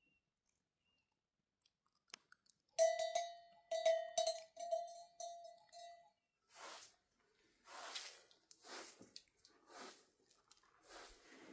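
A short straw hand broom sweeping a carpet in regular swishing strokes, about one a second, through the second half. Before it, about a third of the way in, comes a quick run of about six ringing metallic strikes with a clear, sustained tone.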